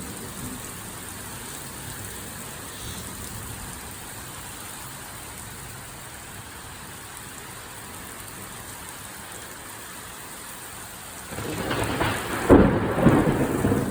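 Steady heavy rain falling during a thunderstorm. About eleven seconds in, thunder breaks in loudly, peaks in a sharp crack a second later and keeps rumbling.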